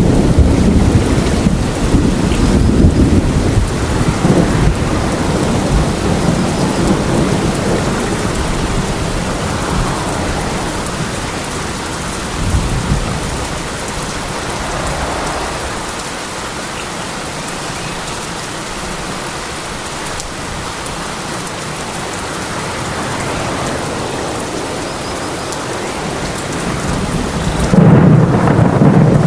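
Steady rain in a thunderstorm. Rolling thunder rumbles through the first few seconds and fades, and a new loud peal of thunder breaks in near the end.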